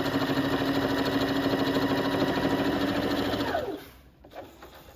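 Janome 725S mechanical sewing machine running steadily at speed, straight-stitching through four thicknesses of denim. About three and a half seconds in, the motor winds down and stops, leaving a few faint clicks as the fabric is handled.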